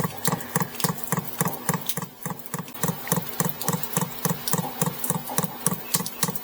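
Fuel dosing pump of a Maxpeedingrods 12 V diesel heater ticking steadily, about four clicks a second, as it primes the fuel line with diesel in manual pump mode.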